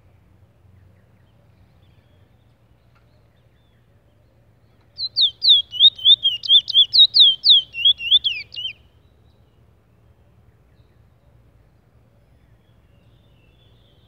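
Caged Trinidad bullfinch singing one fast phrase of about four seconds, starting about five seconds in: rapid, repeated down-slurred whistled notes, about five a second, dropping lower at the end.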